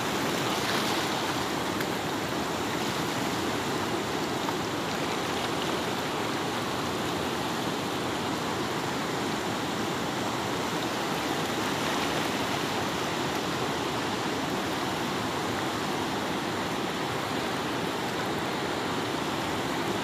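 Fast-flowing river rushing steadily through rapids and over rocks.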